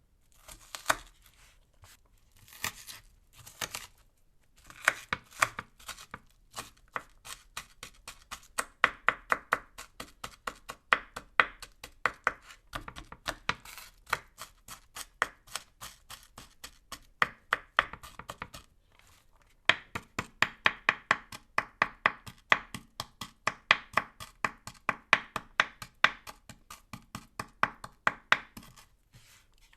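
Kitchen knife chopping an onion on a cutting board: quick, evenly spaced strokes, several a second, in runs broken by brief pauses, one of them about two thirds of the way through.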